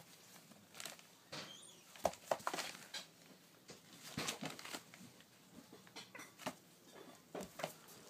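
African grey parrot chicks shuffling on a paper pad: short, scratchy taps and rustles of their feet and bodies on the paper, coming irregularly, with the loudest cluster about two seconds in.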